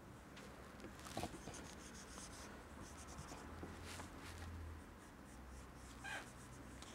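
Pencil scratching across paper in quick sketching strokes, faint, with a few sharper strokes about a second in, near four seconds and near six seconds.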